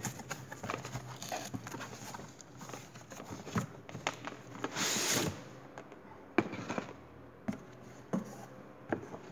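A cardboard box being opened and a hard plastic tool case slid out of it: rustling and scraping of cardboard with scattered clicks and knocks from the case, and a longer scrape about five seconds in.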